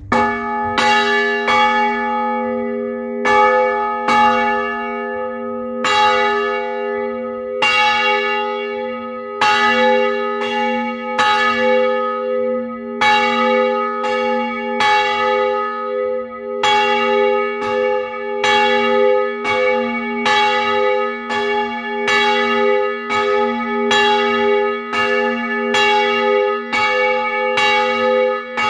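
A large church bell, about 420 kg and 896 mm across, cast by Bratia Fischer of Trnava in 1924 and tuned to G-sharp, swings and is struck by its clapper about once a second at uneven intervals. Each stroke rings on into the next.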